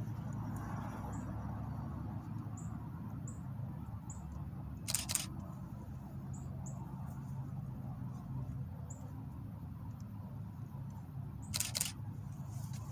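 Two camera shutter clicks, about six seconds apart, over a steady low background hum.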